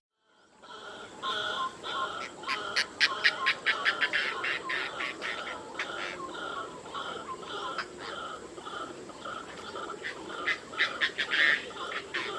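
Bird calling: a call repeated evenly about twice a second, with bursts of fast, sharp notes about two seconds in and again near the end.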